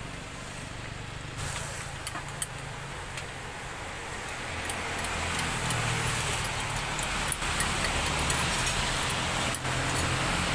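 Steady background noise at a street drink stall: a low hum under a broad hiss that grows louder about halfway through, with a few light clinks near the start.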